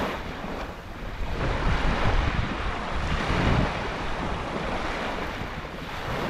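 Small waves lapping and washing up a sandy shoreline, with wind buffeting the microphone in uneven low rumbles.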